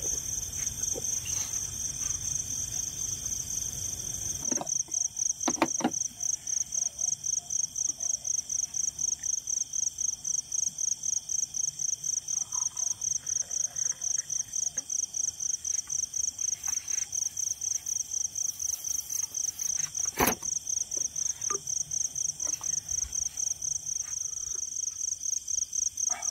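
Insect chirping steadily in a high, even pulse about three times a second. A low rumble underneath stops about four seconds in, and there are a few short knocks.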